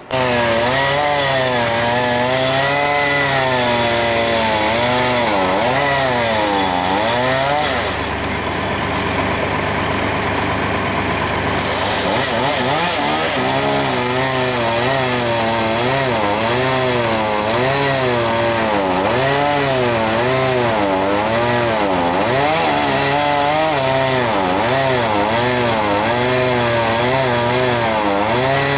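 Chainsaw running hard while cutting a poplar tree, its engine pitch rising and falling over and over as the throttle and load change, easing off briefly about eight seconds in.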